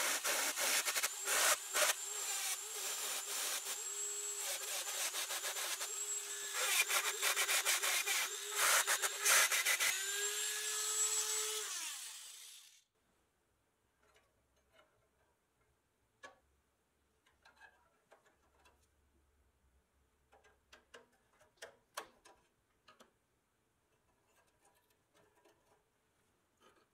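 Dremel rotary tool running at high speed with a steady whine, grinding against the pressed-steel body and brackets of a toy fire truck, the grinding noise rising and falling as the bit bites. About twelve seconds in it winds down and stops, leaving faint clicks and taps of small metal parts being handled.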